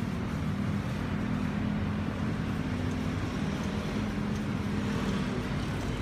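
Steady road traffic noise with a low, even engine hum.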